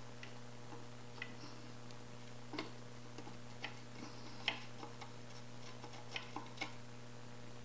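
Irregular small clicks and taps of the circuit board of a Ford EEC-IV engine computer being handled while a Moates Quarterhorse plug-in module is fitted onto its J3 edge connector, the loudest about halfway through, over a steady low hum.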